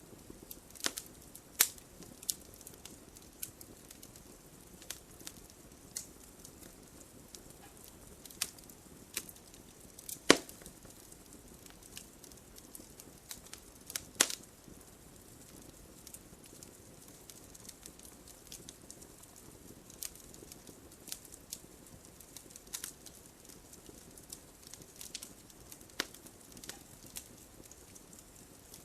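Wood fire crackling in a fireplace: logs burning with a low steady hiss and irregular sharp snaps and pops, the loudest ones about one and a half, ten and fourteen seconds in.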